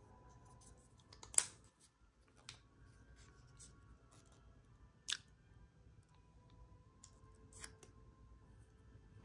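Small objects being handled at close range: a few short, sharp clicks, the loudest about one and a half seconds in and three softer ones spread over the following six seconds, over a faint background.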